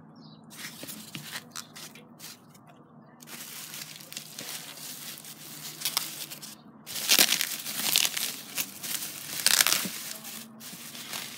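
Plastic bubble wrap crinkling and rustling as a doll is unwrapped by hand, with irregular crackles that get louder about seven seconds in.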